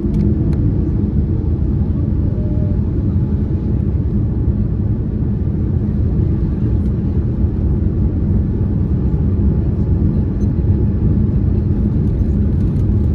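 Cabin noise of a twin-engine jet airliner climbing out just after liftoff: a steady low rumble of the engines at takeoff power, heard through the fuselage.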